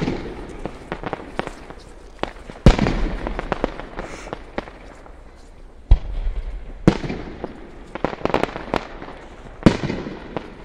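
Fireworks display going off overhead: four loud booming bursts a few seconds apart, each trailing a rolling echo, with many smaller pops and crackles between them.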